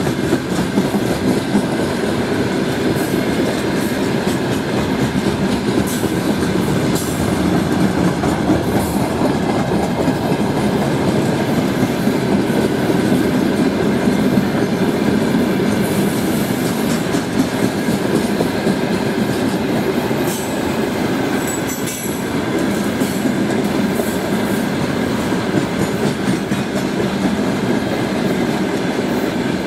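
Freight wagons rolling past at speed: a steady loud rumble of steel wheels on rails, with scattered clicks. The wagons are open gondolas and dump wagons loaded with crushed stone.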